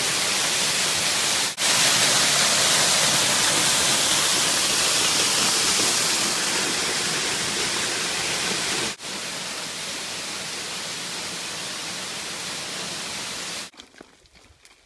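Steady rushing and splashing of a waterfall and its rocky creek, spliced from several takes, so the level jumps about a second and a half in and again about nine seconds in. The water cuts off abruptly near the end, leaving only a few faint clicks.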